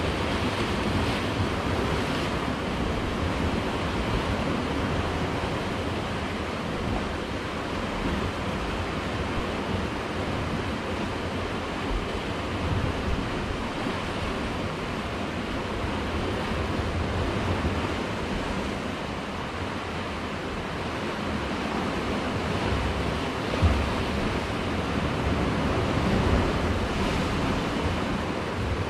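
Sea surf washing and surging against the rocks of a rocky cove, a steady wash, with wind buffeting the microphone in low gusts.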